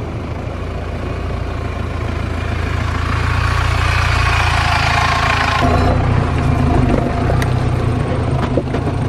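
An off-road 4x4's engine running with a steady low rumble and a rising hiss. The sound changes abruptly about halfway through, and a few sharp knocks come near the end.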